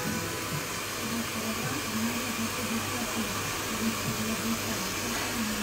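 A steady hiss of room noise, with the faint soundtrack of a television playing underneath.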